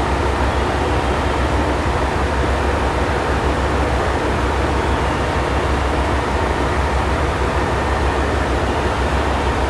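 Diesel railcars standing at a station platform with their engines idling: a steady low rumble with a hiss of noise over it.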